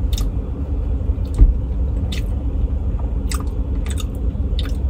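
Close-up chewing and biting mouth sounds, wet clicks every half second or so, over the steady low rumble of an idling car engine. One low thump about a second and a half in.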